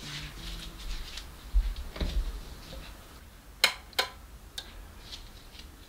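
A table lamp's pull-chain switch being pulled, two sharp clicks about a third of a second apart, with a fainter click just after. Before them come a couple of soft, low thuds.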